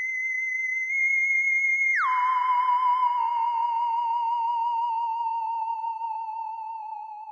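Intro music: a single high, wavering electronic tone that slides down about an octave about two seconds in, then holds and slowly fades.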